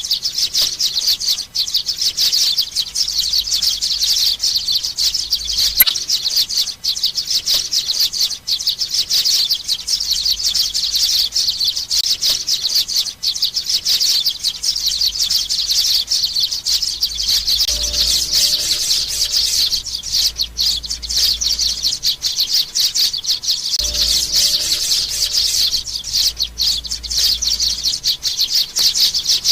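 Young sparrows chirping rapidly and without pause, a dense run of high-pitched chirps.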